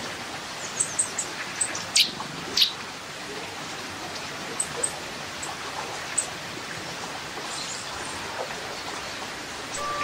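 River water rushing steadily over rocks, with small birds chirping: a few short high chirps in the first two seconds, two quick downward-sweeping calls about two seconds in, and a few more chirps around five and six seconds.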